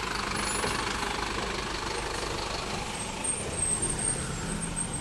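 Neobus city minibus's diesel engine running as the bus manoeuvres slowly past at close range.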